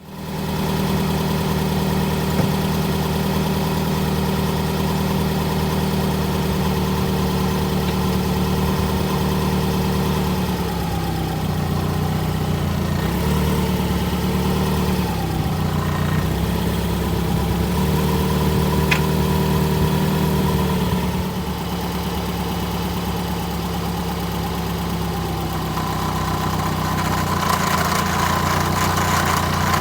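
Subaru Legacy (BP/BL) boxer engine idling, its speed wavering a little midway, with a rattle from the muffler's heat shield, a rattle first feared to be the clutch.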